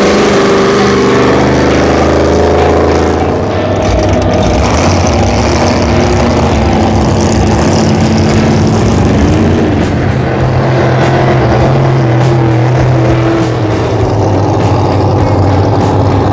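Supercharged racing boat engines running loud as boats pull away through the water and then race past in a group, the pitch rising and falling as they rev.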